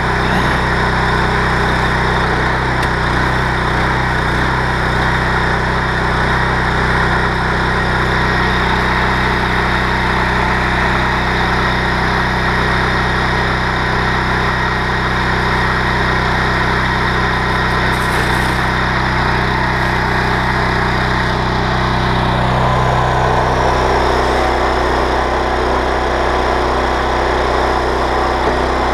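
Honda GX390 single-cylinder petrol engine running steadily, driving a belt-driven pressure washer pump. About three-quarters of the way through, its note shifts and part of the noisy hiss drops away.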